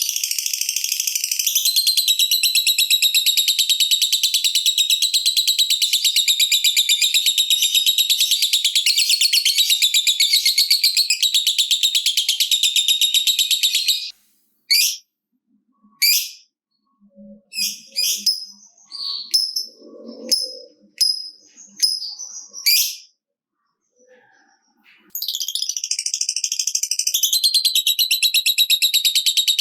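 Lovebird ngekek: a long, very fast, high-pitched chattering trill, the rapid clicking 'typing' sound. It runs about fourteen seconds, breaks into scattered short chirps, then starts again about twenty-five seconds in.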